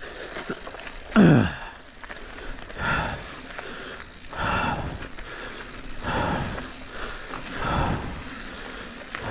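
A mountain biker breathing hard and rhythmically while pedalling, about one breath every second and a half. The loudest breath, about a second in, is voiced and slides down in pitch, over a faint steady rush of tyre and wind noise.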